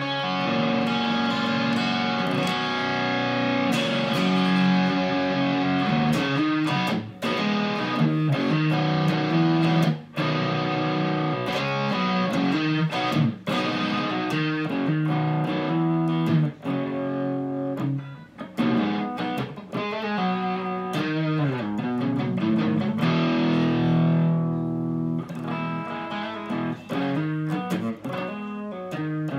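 Electric guitar, an Epiphone Explorer on its coil-tapped bridge pickup in single-coil mode, played through a Cascade Pedals Black Cat Overdrive into a Fender Supersonic amp. It plays overdriven chords and riffs with long sustain, broken by a few brief stops.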